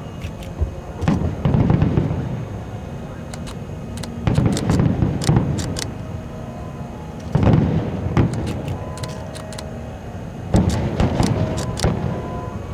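Fireworks display: four volleys of shells bursting, about every three seconds, each a cluster of bangs with crackling.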